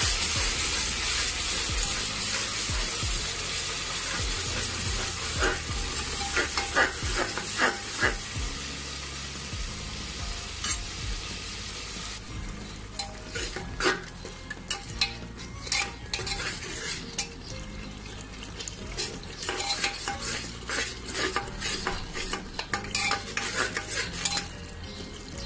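Onion paste frying in hot oil and ghee with whole spices: a sizzle that is loudest at first and dies down about twelve seconds in. It is stirred throughout, the utensil scraping and knocking against the metal pot, and the knocks are more frequent once the sizzle fades.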